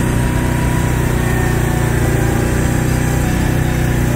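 Can-Am Outlander 800 Max ATV's V-twin engine running steadily while being ridden at an even pace.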